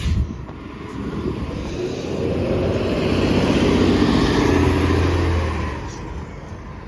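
Transit bus engine pulling away under acceleration, growing louder to a peak a few seconds in, then fading as it goes.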